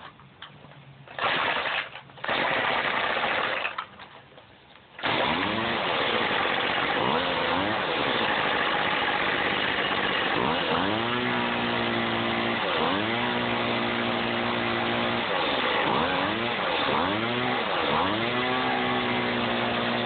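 Craftsman gas string trimmer engine starting after two short bursts, about five seconds in, then running and being revved over and over. The throttle is blipped up and down and at times held wide open for a couple of seconds. It is running again after a carburetor clean, new spark plug, new air filter and fresh fuel.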